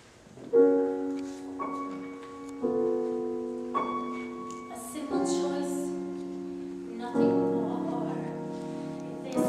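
Grand piano playing a slow introduction: six held chords, each struck and left to ring and fade before the next.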